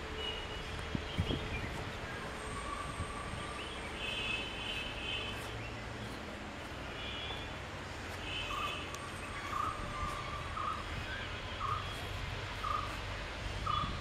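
Birds calling outdoors over a steady low rumble. Short clusters of high calls come a few seconds in and again just past the middle, and from about two-thirds of the way through a short call repeats roughly once a second.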